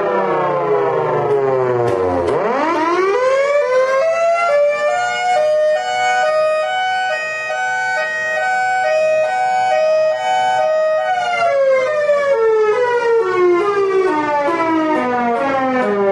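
3D-printed miniature Thunderbolt 1003 siren sounding. Its wail falls to a low growl, then rises steeply again about two seconds in and holds a steady high pitch that pulses as the horn rotates. It winds down from about eleven seconds on, with a few clicks near the end.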